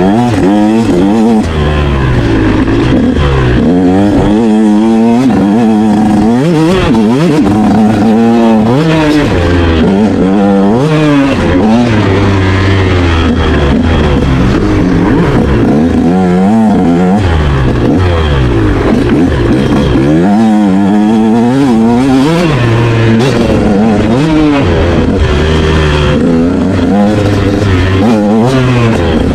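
Motorcycle engine run hard, its pitch climbing and dropping again and again as the throttle is opened and closed.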